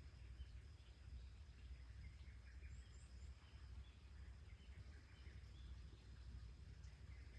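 Near silence of outdoor ambience: a steady low rumble with faint, scattered short high chirps.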